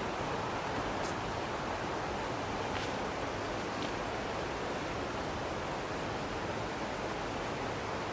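Rushing creek water, a steady even rush with no let-up.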